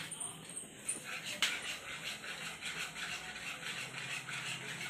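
Wire whisk beating a wet banana batter in a plastic bowl: rhythmic swishing and scraping at about three strokes a second, with one sharper click of the whisk a little over a second in.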